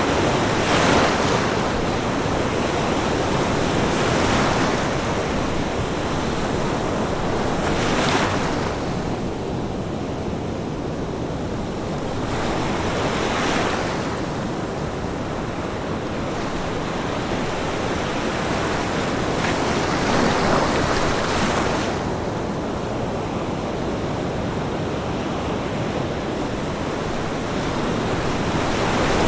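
Ocean waves breaking on a beach, a steady rush of surf that swells and falls back every few seconds as each wave comes in.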